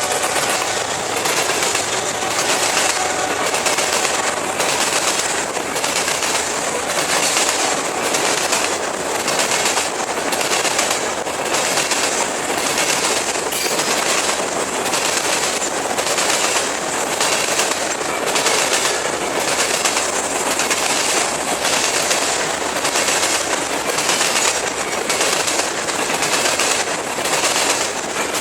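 Freight train rolling past at speed, its wheels clicking over rail joints in a steady beat about once a second, over a continuous hiss of steel wheels on rail.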